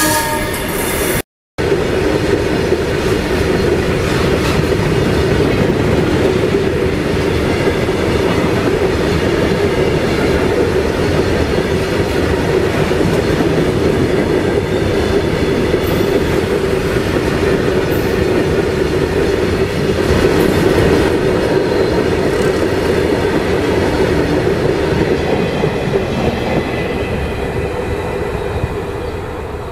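Loaded freight wagons rolling past close by: a steady, loud rumble of steel wheels on rail with occasional clicks and a faint wheel squeal late on. The sound eases off near the end as the brake van passes and draws away. The sound cuts out completely for a moment about a second and a half in.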